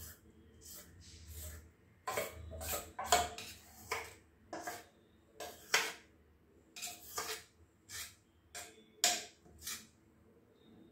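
A metal spoon scraping thick batter out of a stainless-steel bowl into a steel plate: a run of short, uneven scrapes and clinks of metal on metal.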